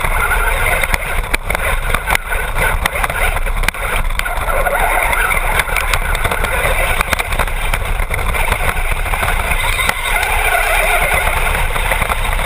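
Traxxas Bandit RC buggy with a brushless motor driving over gravelly dirt, heard from a camera mounted on the car: a loud, steady rush of tyre and chassis noise with many sharp rattling clicks.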